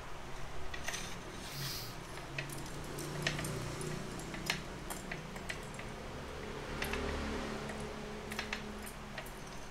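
Scattered light clicks and rattles of a floor pump's metal and plastic parts being handled, its hose head and fittings knocking in the hands.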